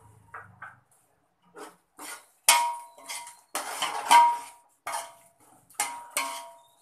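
Metal spoon scraping and clanking against the sides of a large metal cooking pot while stirring a thick tomato masala: an irregular series of sharp metallic strokes, some with a short ringing note, loudest about two and a half and four seconds in.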